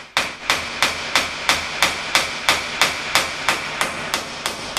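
Steady hammer blows, about three a second, driving the input shaft out of a Chrysler 42RLE transmission's drum, each strike ringing on the metal.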